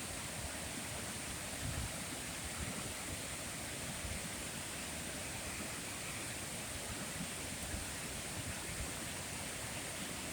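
Steady outdoor nature ambience: a continuous rushing hiss with uneven low rumbles and a steady high-pitched hiss on top.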